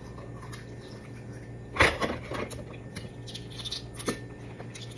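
Balut eggshell being cracked and picked open at its wide end: small scattered clicks and crackles, with one sharper crack about two seconds in.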